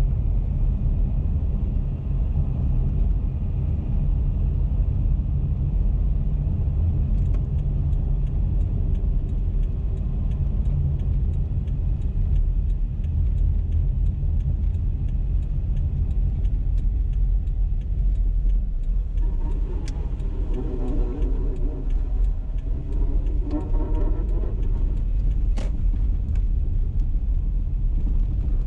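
Car driving: a steady low road and engine rumble. A run of evenly spaced light ticks runs through the middle, and a pitched hum comes in briefly about twenty seconds in.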